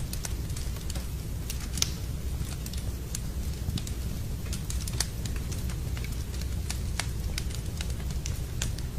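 Wood fire burning in a fireplace: a steady low rumble with irregular sharp crackles and pops, a louder pop about two seconds in and another about five seconds in.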